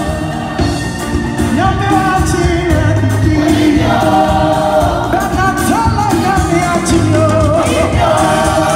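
Loud live gospel music: a choir and lead singers with a full band, bass and drums through the hall's sound system, and the crowd singing along.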